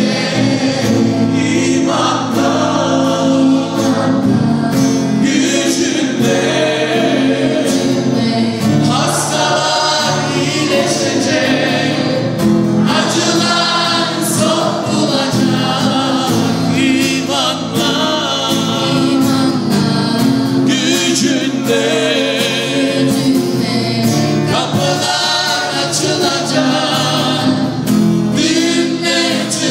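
Group singing a Christian worship song, accompanied by instruments.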